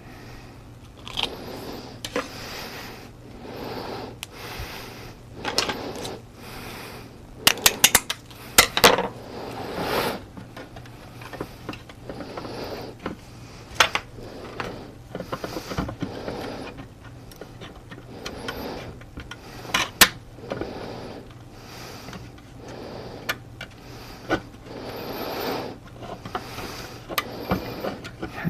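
Small hard objects being handled and set down: scattered clicks, taps and rustling, with a quick run of clicks about eight seconds in and a single sharp click around twenty seconds.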